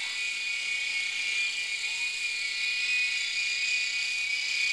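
Toy helicopter flying close, its small electric motor and spinning rotor blades giving a steady high-pitched whine.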